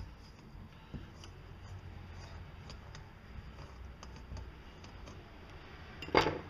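Faint scattered clicks and scraping as a hand tap is turned back out of the freshly cut threads in a chainsaw cylinder, with one loud knock near the end.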